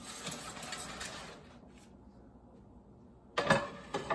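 A spatula scraping the cheesy shrimp mixture out of a skillet, then a few sharp metal clanks near the end as the skillet is set down on the stovetop.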